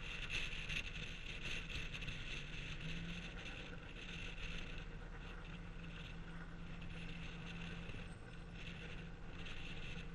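Car engine idling with a steady low hum, with wind noise rushing over the microphone.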